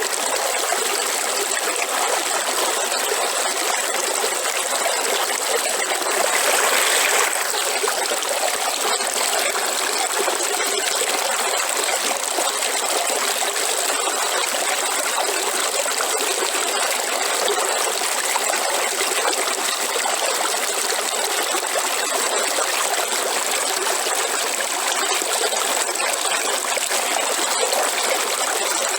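River water flowing in a steady rushing babble, with a brief louder surge about six seconds in.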